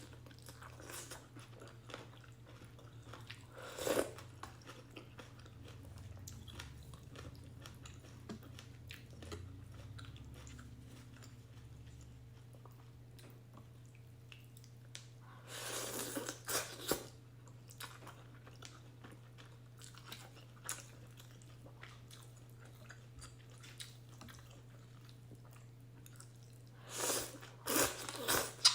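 A person eating beef and egg ramen noodles close to the microphone: quiet chewing throughout, with three louder bursts about 4 s in, around the middle and near the end. A steady low hum sits underneath.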